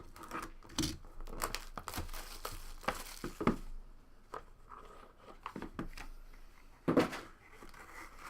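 Plastic wrapping on a sealed trading-card box being torn and crinkled as the box is opened, with scattered crackles and rustles and a longer tearing stretch about two seconds in.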